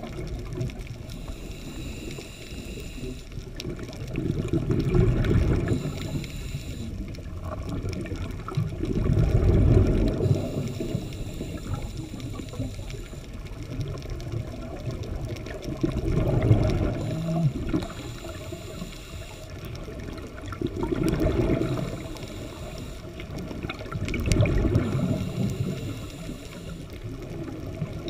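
Scuba diver's breathing recorded underwater: exhaled bubbles from the regulator gurgle out in low rumbling surges about every four to five seconds, over a steady underwater wash.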